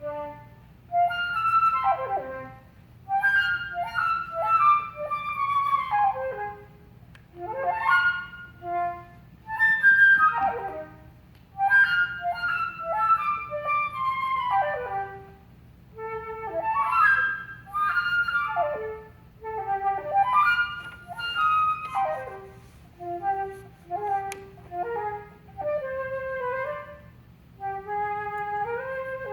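Solo flute playing short phrases of quick downward-sweeping runs separated by brief breaks; near the end the notes climb step by step.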